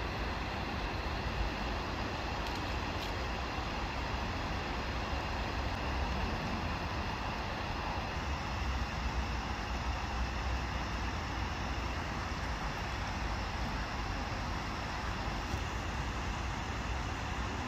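Steady outdoor background noise: a low rumble under an even hiss, with no bird calls standing out.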